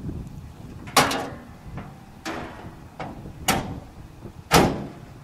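Steel hood of a 1963 Studebaker GT Hawk being lowered and pressed shut: a series of about four sharp metal clunks, the loudest about a second in and again near the end.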